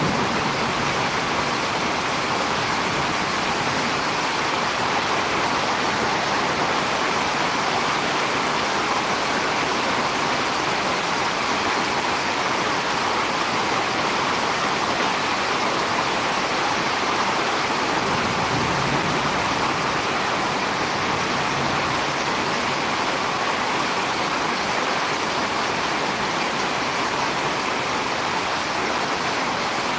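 Steady, unbroken rushing noise of storm wind, even in level throughout.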